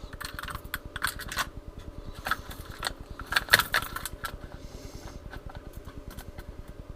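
Hard plastic fishing lures and their hooks clicking and clinking together as they are handled in a tackle box, with irregular sharp clicks and the loudest cluster about halfway through.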